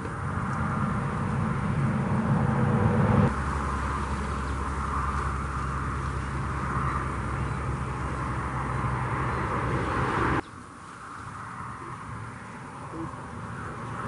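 Low engine drone of heavy road traffic. It swells over the first three seconds, holds steady, then cuts off abruptly about ten seconds in, leaving a fainter background noise.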